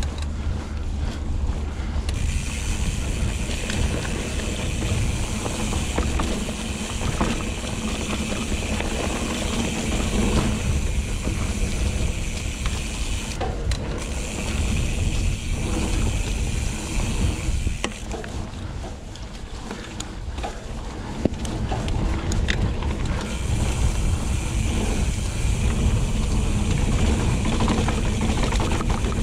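Hope Pro 4 rear hub's freewheel buzzing loudly while the mountain bike coasts, falling silent for a few seconds around the middle when the rider pedals, over a steady rumble of tyres and wind on the helmet camera.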